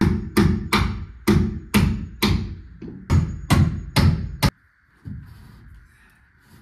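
Rapid nailing into wood framing lumber: about a dozen sharp strikes, roughly three a second, that stop abruptly.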